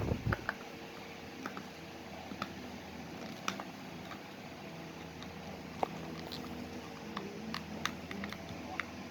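Scattered small plastic clicks and taps as the parts of a car's steering-column multimedia control stalk are handled and clipped together, about ten over several seconds, over a faint steady hum.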